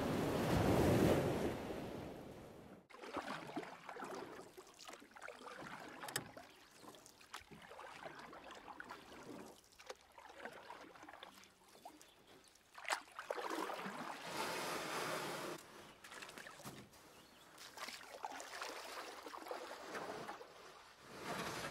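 Wind buffeting the microphone and waves washing over a shore, cut off suddenly about three seconds in. Then water sloshing and lapping as a dachshund paddles in a swimming pool, louder for a couple of seconds in the middle.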